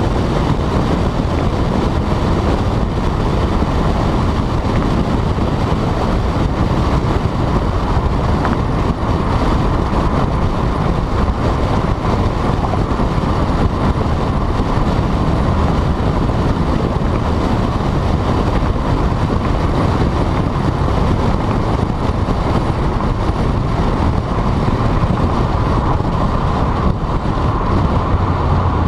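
Volkswagen GTI being driven: a loud, steady mix of engine, exhaust, road and wind noise. A deep drone comes in near the end.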